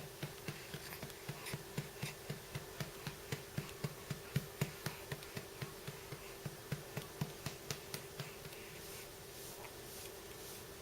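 Soft, regular clicking, about three clicks a second, over a steady low hum; no burp is heard.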